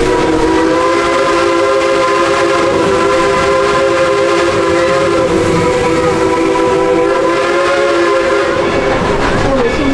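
Steam locomotive's chime whistle blowing one long blast, several notes sounding together, sagging in pitch as it closes near the end. The train's running rumble goes on underneath.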